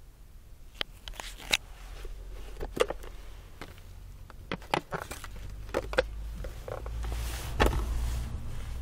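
Handling noise from a cardboard gadget box and the plastic device inside it: a string of clicks, taps and rustles, with a few sharper knocks, over a low steady hum.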